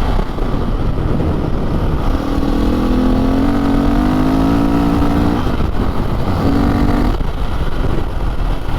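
Off-road motorcycle engine running under way, its pitch climbing slowly for about three seconds, then dropping away and coming back briefly. Under it there is a steady low rumble.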